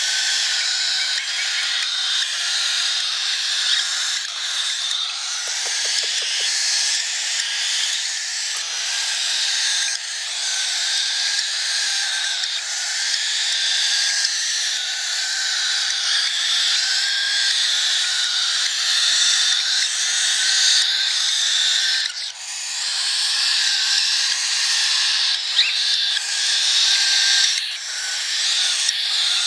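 Baby cockatiel giving its continuous, noisy begging call while being hand-fed, breaking off briefly a couple of times.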